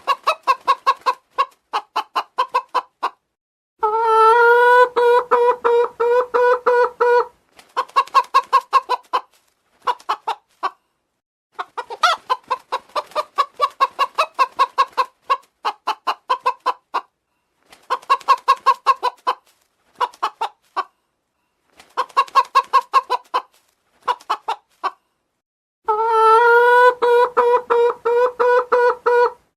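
Domestic chicken clucking in quick runs of short notes with pauses between them, and two long drawn-out calls, one about four seconds in and another near the end.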